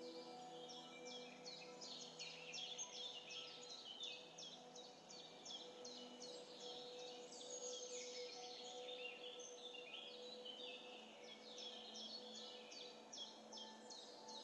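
Faint chirping of many small birds, a dense run of quick falling chirps, over a low steady hum.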